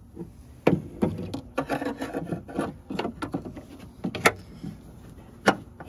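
Plastic door parts being handled and pushed into place inside a car door: scattered knocks, clicks and some rubbing, with the sharpest click about four seconds in and another near the end.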